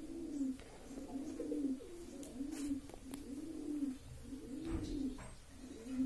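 A dove cooing: a steady series of low, arching notes, about one to two a second.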